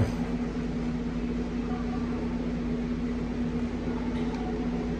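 A steady machine hum: a constant low tone with a few weaker tones over an even hiss, with one short click at the start.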